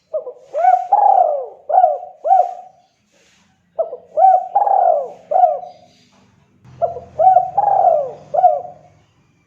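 Spotted dove cooing: three phrases of about five coos each, each phrase with a longer, drawn-out note in the middle. A faint low hum sits under the last two phrases.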